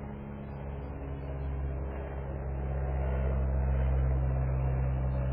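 A steady low mechanical hum, like a motor or engine running, growing a little louder about three seconds in.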